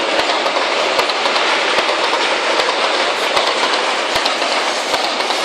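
Freight wagons rolling past on steel rails: a steady rumble and hiss of the wheels, with a regular clickety-clack of wheels over the rail joints a little more than once a second.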